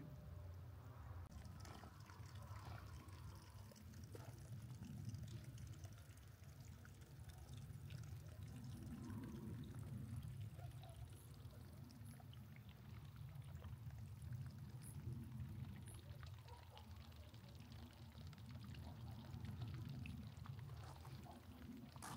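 Faint, steady sound of running water, swelling and easing every few seconds.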